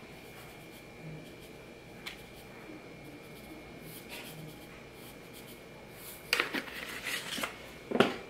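Paper cupcake liners and a disposable aluminium foil pan being handled on a kitchen counter: a few soft clicks, then a burst of rustling and crinkling about six seconds in, and a knock near the end.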